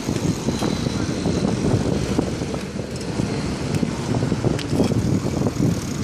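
Rumble of wind and road noise from a bicycle being ridden, picked up by a camera mounted on the handlebars, with scattered small clicks and rattles.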